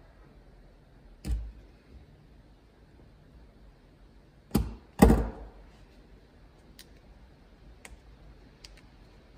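Thumps and knocks on a wooden workbench as a heavy wiring cable and tools are handled: one about a second in, then a close pair about four and a half and five seconds in, the second the loudest, followed by a few light clicks.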